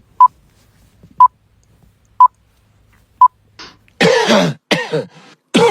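Four short electronic beeps, one a second, then a person coughing several times in quick bursts.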